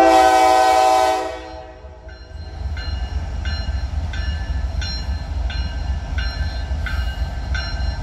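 Norfolk Southern ES40DC-led freight locomotive sounds its air horn in one blast of about a second. About two seconds in, the locomotive bell starts ringing steadily, about two strokes a second, over the low rumble of the diesel engines.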